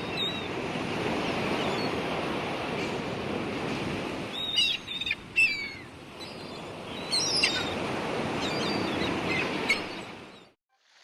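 Steady rush of waterfall water, with a small bird chirping several times over it from about four seconds in. The sound cuts off shortly before the end.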